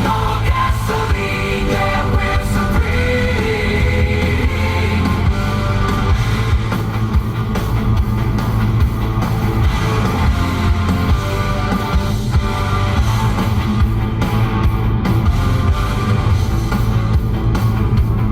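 Loud rock music with a strong, heavy bass.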